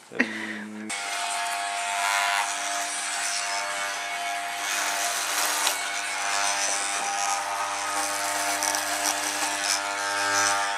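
Electric hair clippers switched on and buzzing steadily, growing louder and hissier about a second in as they cut through hair.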